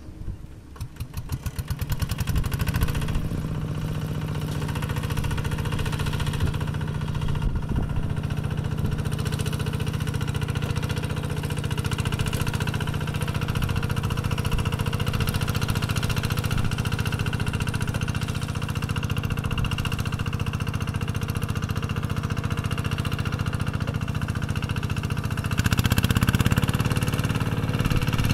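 Single-cylinder Kubota RD110Di-2T diesel on a walk-behind hand tractor. It chugs in separate beats that quicken over the first two seconds into a steady run, then runs louder from about 26 seconds in.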